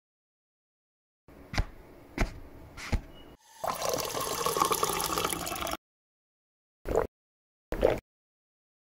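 Water from a tap pouring into a glass, a steady rush lasting about two seconds, after three clicks. Near the end come two short gulps as the glass is drunk from.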